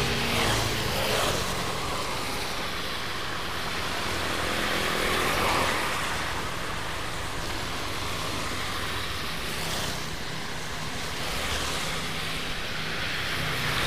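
Traffic passing on a wet road: motorcycles and a car go by one after another, their tyres hissing through the water and swelling as each one passes, over a low steady engine hum.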